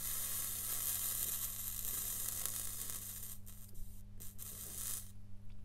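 Flux sizzling under a soldering iron tip dragged across the pins of a surface-mount chip: a steady hiss for about three seconds, then a few short bursts. A steady low hum sits underneath.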